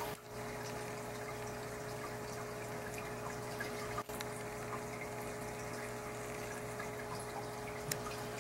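Aquarium filter returning water into a turtle tank: steady trickling and splashing over a steady hum. The sound dips briefly about a quarter second in and again at about four seconds, with a small click near the end.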